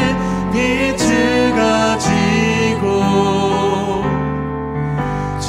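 A man and a woman singing a Korean worship song together over instrumental accompaniment with held low chords; one sung line ends about four seconds in and the next begins near the end.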